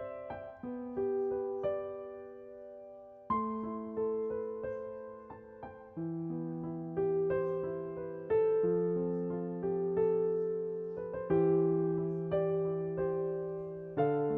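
Slow, gentle background piano music: struck chords and single notes left to ring and fade.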